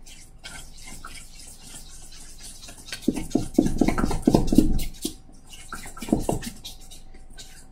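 Whisk beating thick powdered-sugar icing in a stainless steel bowl: quick wet clicking and scraping strokes, fastest and loudest for about two seconds in the middle, as a splash of milk is worked in to thin it.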